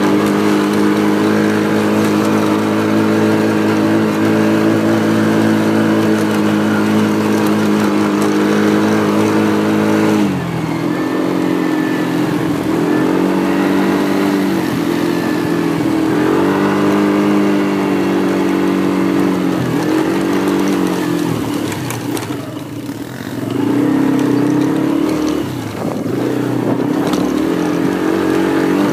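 Quad (ATV) engine running loud and steady for about ten seconds, then dropping and rising in pitch again and again as the throttle is let off and opened while the quad rides through snow.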